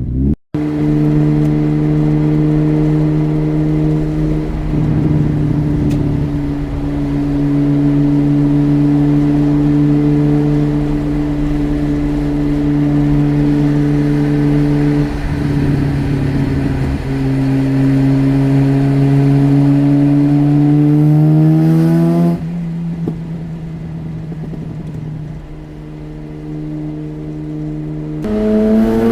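Mazda RX-8's rotary engine running while the car is driven, its note holding steady for long stretches with small changes in revs. Later it climbs in pitch, falls away suddenly and quieter, and climbs again near the end.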